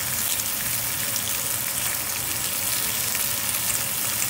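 Strips of bacon frying in a cast iron skillet: a steady sizzle with scattered small pops.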